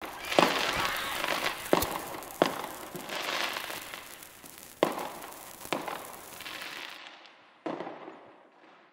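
Firecracker with a lit fuse hissing and sputtering, broken by a series of sharp cracks and bangs as it goes off. The noise thins out and fades near the end.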